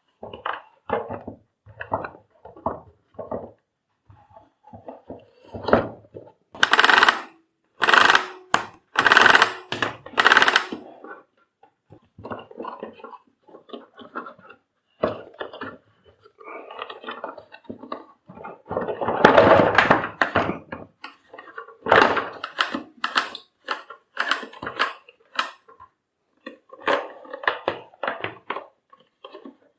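Hands working on the vacuum cleaner's cord-reel mechanism: a string of clicks and knocks of plastic parts, with four louder scraping, rattling bursts about 7 to 10 seconds in and another longer one about 20 seconds in.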